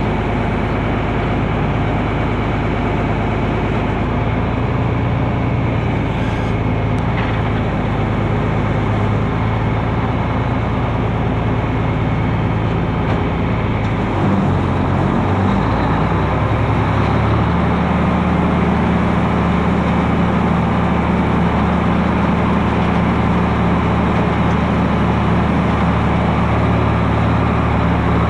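Tractor engine running steadily under load. About halfway through, its pitch steps up and it holds at the higher engine speed.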